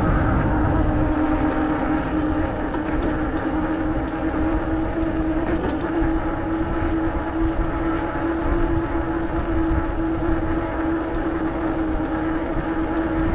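A vehicle being ridden at a steady cruising speed: a constant hum with overtones over steady wind and road rumble.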